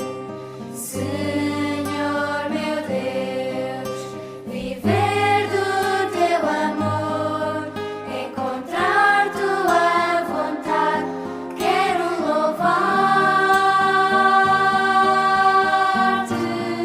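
A sung religious song: voices singing slow, held notes over instrumental accompaniment with steady bass, growing louder about five seconds in.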